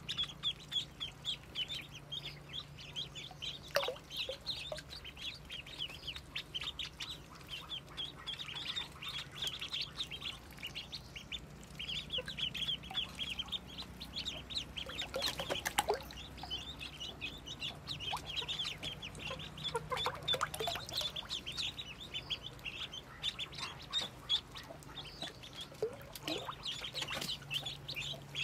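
A brood of many ducklings peeping continuously, a dense overlapping chorus of short high-pitched peeps.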